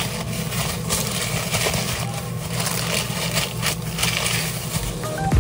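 Sandwich wrapping paper rustled and folded by plastic-gloved hands, with short crinkles and a tap or two as the wrap is pressed down. A steady low hum runs underneath.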